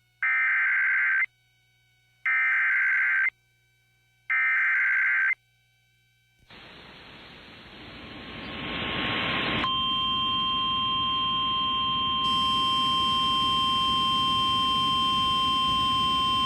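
Emergency Alert System header: three one-second bursts of warbling SAME data tones about a second apart. Then a rising hiss of radio static, and from about ten seconds in a steady high-pitched alert tone, the weather-radio warning alarm, over the hiss.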